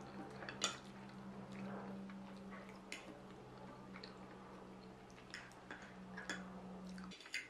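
A fork clinking and scraping against a plate, with a handful of sharp clicks, while spaghetti is eaten with soft chewing and slurping sounds. A steady low hum underneath stops suddenly near the end.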